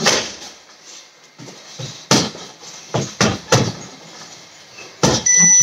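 Punches and kicks landing on a heavy bag as a series of sharp thuds in quick combinations. Near the end an electronic beep sounds: the reaction-drill cue that signals the next kick.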